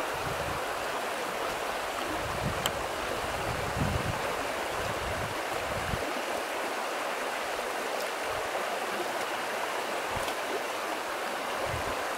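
Shallow, rocky brook running steadily over stones with an even babbling rush.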